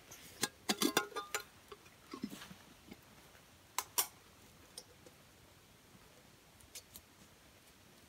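Rustling nylon backpack fabric and small knocks of a blackened camp pot as it is pushed into the pack, over the first second and a half. Two sharp clicks follow a little before the middle, then only faint ticks.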